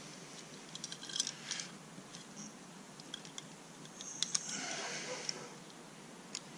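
Small clicks and rattles of metal and plastic as a Walbro 255 fuel pump is worked by hand into its hanger bracket, with a longer rubbing scrape about four seconds in.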